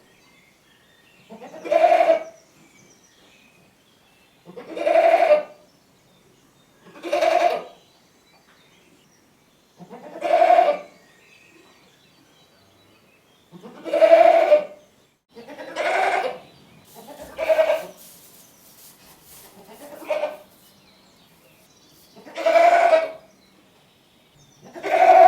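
Goat bleating over and over: about ten separate short, pitched bleats, each under a second long, coming every two to three seconds.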